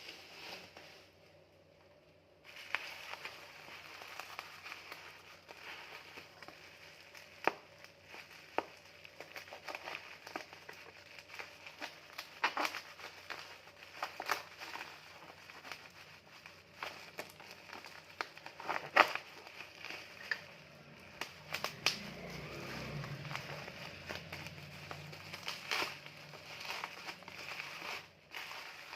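Parcel packaging being handled and opened: crinkling and rustling with many sharp crackles and snaps, starting about two and a half seconds in.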